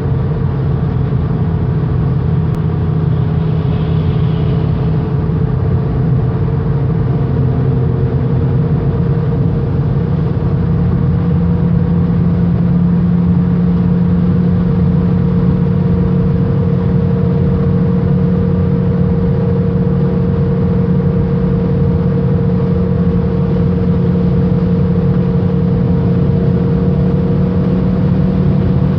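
Ford Kuga 2.5 cruising at about 152 km/h, with a steady drone and a thin whining tone over engine and road noise. The pitch edges slightly upward. The owner takes the hum for a transmission fault.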